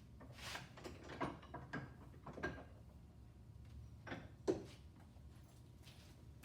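A series of light clicks and knocks from metal tools and engine parts being handled, in two clusters, with the loudest knock about four and a half seconds in.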